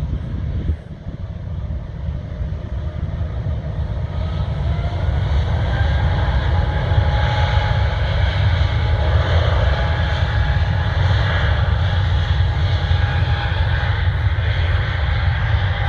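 Airbus A220 throttling up for takeoff, heard from far off as a strange whine. Several tones come in about four seconds in, rise a little, then hold steady over a low rumble, and the whole sound grows louder. The whine is a noise every A220 makes at this point, which the uploader takes to come from its engines.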